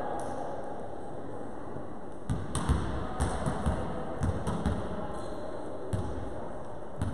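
A volleyball bounced repeatedly on a wooden gym floor: a string of dull thuds, irregularly spaced, starting about two seconds in, over a low murmur of the hall.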